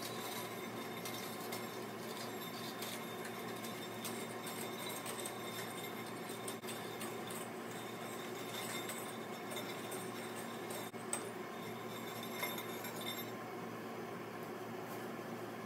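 Old coiled kiln heating-element wire being pulled out of the firebrick grooves: light metallic clinking and jingling of the coils against the brick, many small clicks over a steady low hum.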